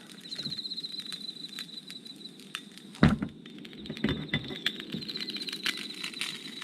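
Crackling and popping of a small campfire with bacon frying in a mini frying pan, many sharp little pops throughout. A loud knock comes about three seconds in, and a high pulsing trill runs in the background.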